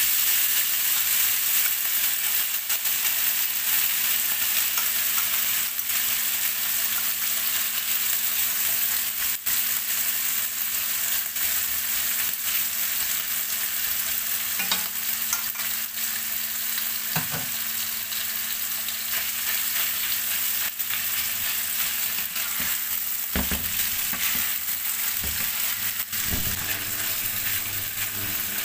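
Minced beef sizzling steadily in hot oil in a nonstick wok, with short clicks and knocks of chopsticks and then a wooden spatula against the pan as it is stirred, more of them in the last third.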